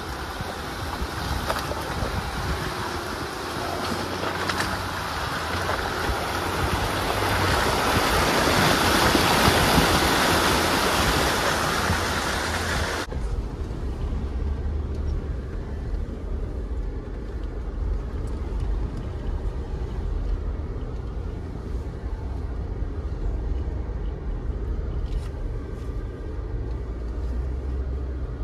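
A vehicle driving, heard as a steady low road-and-engine rumble. For the first part a louder rushing noise swells up and then cuts off suddenly about 13 seconds in.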